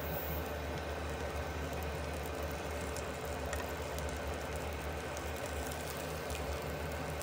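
Steady low hum and hiss of an electric cooktop running under a frying pan, with a few faint taps and scrapes of a spatula and fork in the pan.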